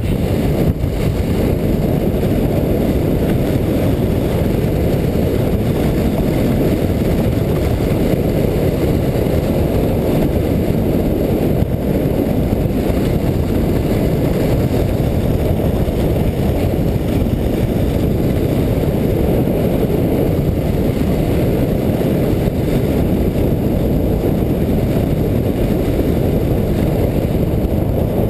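Steady low rumble of a sled sliding fast down a groomed snow run at about 40 km/h, mixed with wind rushing over the microphone.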